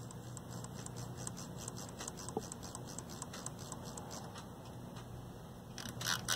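Detented rotary controls and switches of a 1980s Yamaha R-2000 stereo receiver being turned back and forth, clicking about four or five times a second, to work freshly sprayed contact cleaner through the pots and switches. The clicks get much louder near the end.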